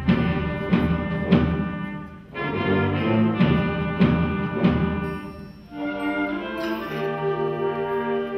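School wind band playing loud, accented chords about twice a second, breaking off briefly twice. Near the end the band moves into softer, held brass chords.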